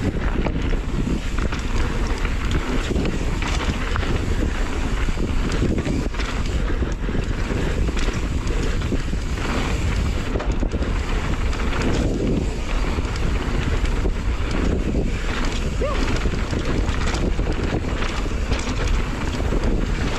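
Wind rushing over the microphone of a camera mounted on a mountain bike descending a dirt singletrack, with the tyres rolling on the dirt and frequent small knocks and rattles from the bike over the bumps.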